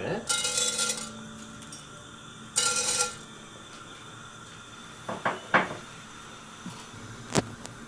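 Metal kitchen utensils clattering against a pan and a container, in two short bursts about two seconds apart, followed by a few sharp single clicks.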